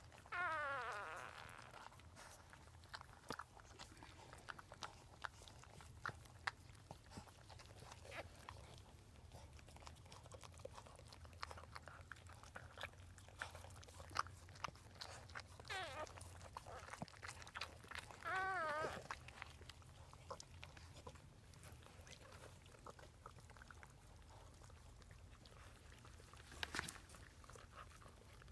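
Dachshunds licking newborn puppies clean: a faint, continual run of wet licking and smacking clicks. Over it come a newborn puppy's high squeal that falls away just after the start, and a short, wavering squeal a little past the middle.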